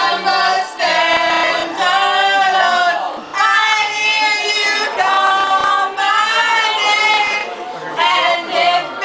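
Several women singing a pop song loudly together at karaoke, their voices carrying in phrases of a second or two.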